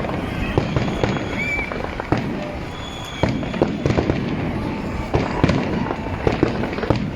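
Fireworks display: an irregular, rapid string of bangs and crackles over a continuous low rumble.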